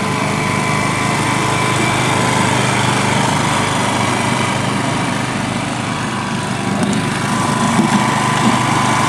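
Walk-behind greens reel mower's small petrol engine running steadily as it cuts a putting green.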